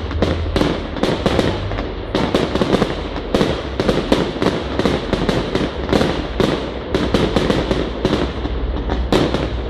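Fireworks display: a continuous barrage of aerial shells bursting, with sharp bangs following one another several times a second and no let-up.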